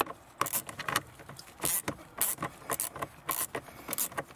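Socket ratchet clicking in short, irregular bursts, about three a second, as it undoes a 6 mm bolt.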